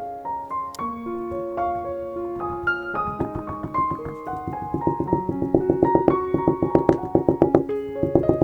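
Background piano music: a melody of single notes, turning into quick repeated chords about three seconds in and growing louder.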